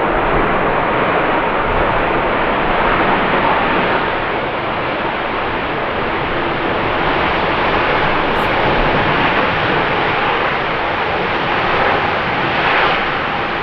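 Jet airliner's engines running loud and steady: a broad rushing noise with a faint whine held under it.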